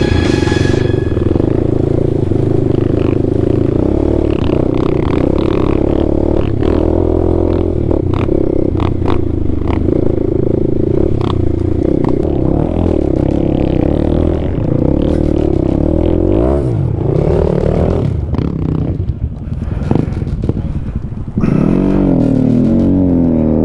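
Dirt bike engine running steadily under way over a rough, muddy track, with the rattle and clatter of the bike over bumps. Near the end the engine is revved up and down several times.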